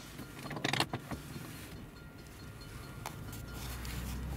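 Clicks and light rattles of handling inside a car cabin, over a low engine hum that grows louder near the end.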